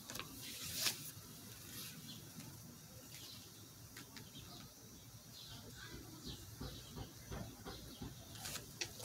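Faint rustling and soft crinkling of a paper slip handled in the hands, the clearest rustle about a second in.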